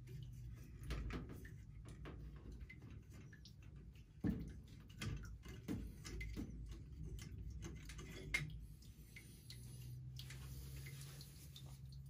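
Faint, irregular clicks and knocks of metal fittings being handled as a steam boiler's pressure gauge is unscrewed and its fitting removed. The two loudest knocks come about four seconds in and about eight seconds in, over a low steady hum.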